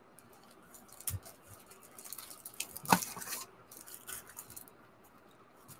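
Plastic-sleeved clear files being handled: scattered crinkles and taps of the plastic wrapping, with one sharper tap about three seconds in.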